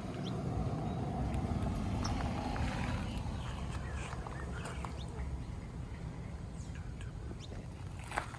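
2011 Harley-Davidson Street Bob's Twin Cam 96 V-twin idling through a Lowbrow 2-into-1 exhaust, a steady low pulsing.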